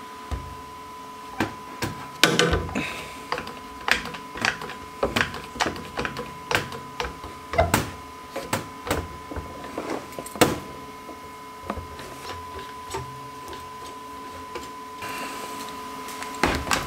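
Irregular metal clicks and knocks of a bus's underbody storage-compartment door being worked in its frame and pressed against its weather stripping, over a faint steady high tone.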